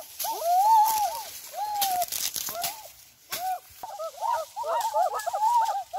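Children's voices hooting and whooping in short rising-and-falling calls, overlapping more thickly in the second half, with a few sharp cracks from sugarcane stalks being snapped.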